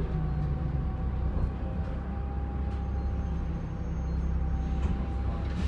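Alexander Dennis Enviro400 Trident double-decker bus under way: the diesel engine runs with a low rumble, and a steady turbocharger whine is held at one pitch above it.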